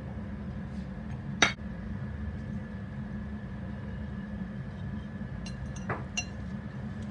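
A plate clinking against a mixing bowl as ingredients are tipped in: one sharp clink about a second and a half in, a lighter one near six seconds with a few faint ticks around it. A steady low hum runs underneath.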